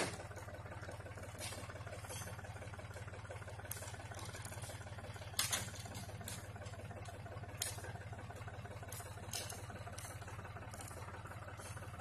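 A farm tractor's engine running steadily with a low, even hum. A few short, faint clicks or knocks are heard at irregular intervals over it.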